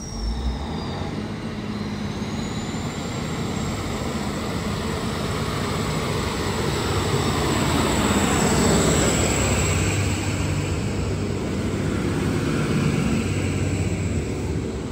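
Stainless-steel diesel passenger railcar running past close by, its engine rumbling under a thin steady high whine. It grows louder to a peak about halfway through and stays loud as the carriages go by.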